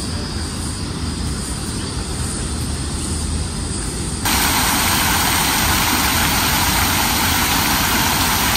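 A low, steady outdoor rumble. About four seconds in it switches abruptly to the loud, steady splashing of the Archibald Memorial Fountain's water jets pouring into its basin.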